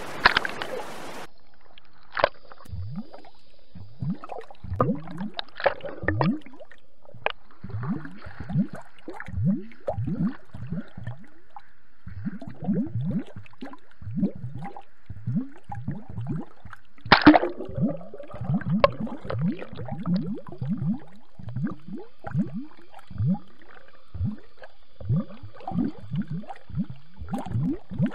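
Water gurgling and bubbling around a submerged camera, heard underwater: a string of short gurgles that slide down in pitch, about one or two a second, with one louder, sharper burst a little past halfway.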